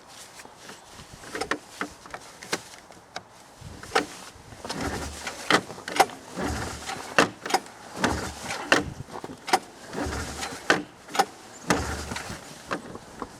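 Handling noise close to the microphone as the camera is fitted to a helmet: irregular sharp clicks and knocks, with rubbing and a few short low thumps in between.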